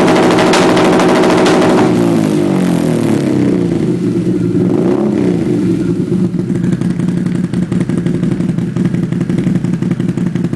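Can-Am vehicle engine held at high revs, dropping back about two seconds in and settling into a steady idle.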